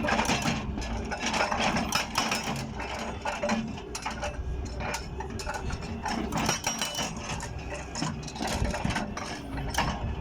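Hydraulic breaker on a 2000 Daewoo excavator hammering stone in rapid repeated strikes, over the low steady running of the excavator's engine.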